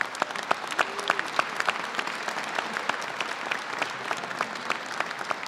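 Audience applauding: many people clapping at once in a dense, steady stream of claps.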